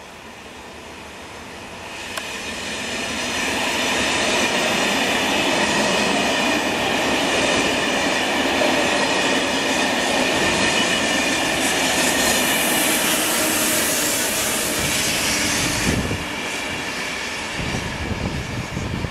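Push-pull passenger train of Corail coaches, pushed by a BB 22400-series electric locomotive, passing at reduced speed: wheels running over the rails with a steady high squeal. It builds over the first few seconds and drops away about sixteen seconds in.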